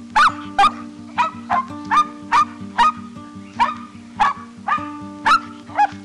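Dog barking repeatedly: short, sharp barks about two a second, with a brief pause near the middle, over background music.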